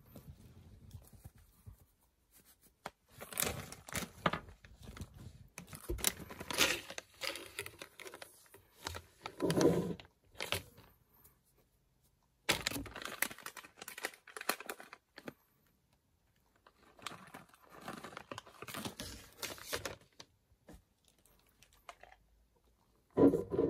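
Plastic Glico GABA chocolate bag crinkling and tearing as it is handled and opened, in several bouts of rustling. A short, louder sound near the end.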